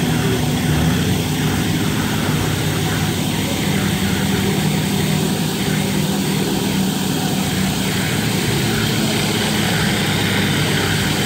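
Walk-behind concrete floor grinder (Marrs Products Fast Prep grinder & polisher) grinding a concrete slab, its motor and heads running steadily, together with a DC Tromb 400 dust extractor sucking the dust away through its hose. A loud, even drone with a steady low hum.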